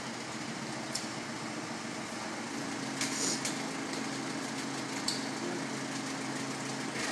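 Telehandler's diesel engine running steadily, with a low humming note that comes in about two and a half seconds in and holds for several seconds. A few short, light clicks sound at intervals.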